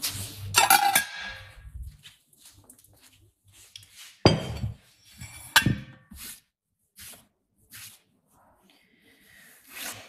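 Handling noises: irregular knocks, clatters and rustling, with the loudest clatters about half a second in, around four seconds in and near six seconds, then a few short thuds.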